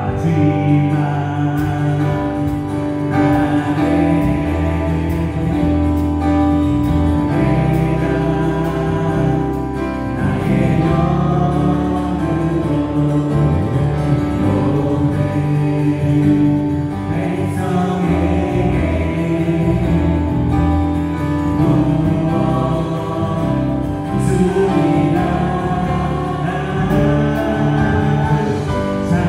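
Church praise band playing a worship song on keyboards, electric guitar, bass guitar and drums, with a group of voices singing over it.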